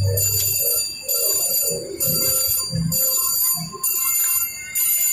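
VGT Mr. Money Bags slot machine playing its electronic spin sounds: high ringing tones in stretches of about a second with short breaks, as the reels spin on a $10 bet.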